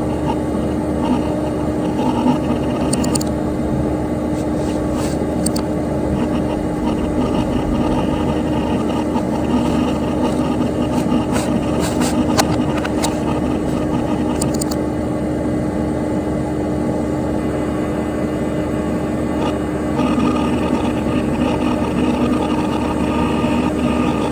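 Dell Dimension XPS P100c desktop computer running: a steady whir of its cooling fan and spinning hard drive, with a constant hum tone and a few brief faint ticks.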